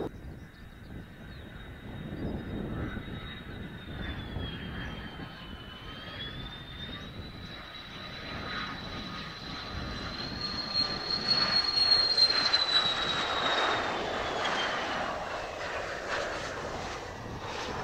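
Mitsubishi F-2B fighter's single F110 turbofan on landing approach: a high jet whine that grows louder to a peak about twelve seconds in, then falls in pitch as the jet passes.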